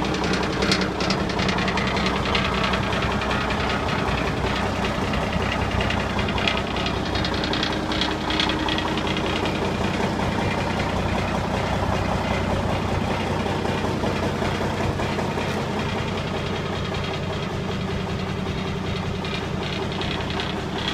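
Cummins N14 diesel engine of a Kenworth T800 dump truck idling steadily.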